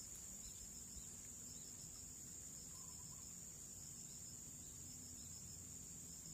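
Insects chirring as a faint, steady, high-pitched drone.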